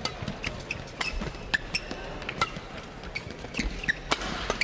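Badminton rally: a string of sharp racket hits on the shuttlecock, with short squeaks from players' shoes on the court.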